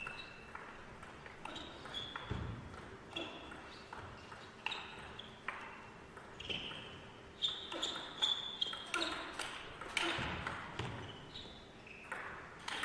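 Celluloid-plastic table tennis ball being struck back and forth in a fast rally, sharp pings of racket and table hits every half second or so, echoing in a large hall.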